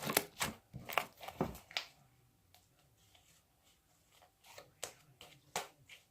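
Homemade glue slime being stretched and squeezed by hand, giving a quick run of sticky pops and crackles in the first two seconds and a few more near the end.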